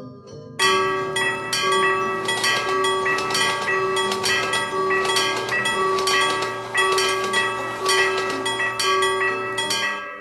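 Railroad crossing warning bell ringing with rapid, evenly repeated clangs. It starts about half a second in and stops just before the end.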